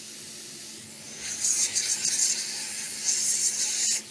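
Hot air rework station blowing through a small nozzle to melt hot glue, a high hiss that comes up about a second in, dips briefly, and cuts off near the end with a click. A steady faint hum runs underneath.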